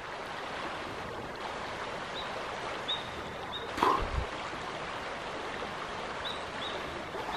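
Shallow stream flowing steadily over a riffle, with a few short high chirps from a small bird in two little clusters and a brief bump about four seconds in.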